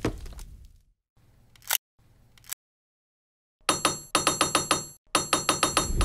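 A bell ringing rapidly, about eight strikes a second, for about two seconds with a brief break in the middle. Before it come a short hit and two quick rising swishes.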